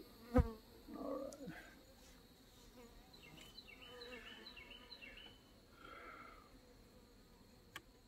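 Honey bees buzzing around an opened hive. About half a second in comes a sharp knock as the metal hive tool works against the wooden frames, with some scraping after it and a click near the end.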